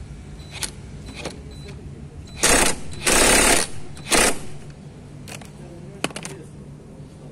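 Cordless impact wrench hammering on the scooter's front drive-pulley nut in three short bursts, the middle one the longest, as the nut is undone.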